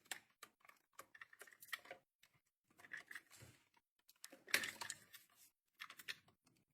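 Faint, irregular small clicks and rustles of hands working on electrical wiring and tools, with a louder cluster of clicks a little past the middle.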